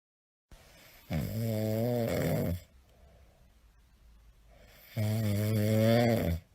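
A pet snoring loudly: two long, low snores about four seconds apart, each lasting about a second and a half.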